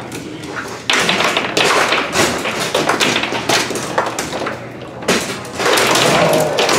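Foosball table in fast play: the ball and the rods' men knocking and clacking in rapid clusters. It starts hard about a second in, eases briefly around four and a half seconds, then picks up again.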